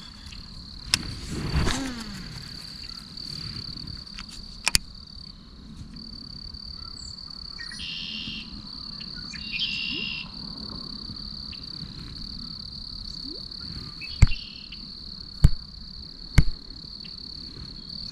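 Steady high-pitched chorus of insects such as crickets, with two short animal calls in the middle, about two seconds apart. Near the end come three loud sharp knocks about a second apart.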